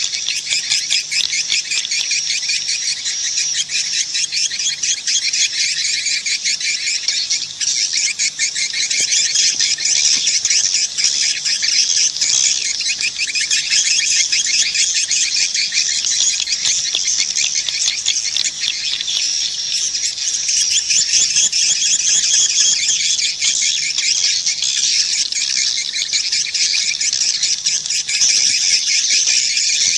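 A dense chorus of edible-nest swiftlets twittering, with rapid high chirps overlapping without a break. It is a swiftlet calling (lure) sound, of the kind played to draw swiftlets into a nesting house.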